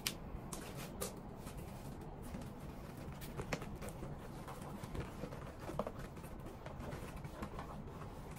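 Handling noises from a white handbag with a hard acrylic handle: scattered light clicks, taps and rustles as it is turned and packed, over a steady low background hum.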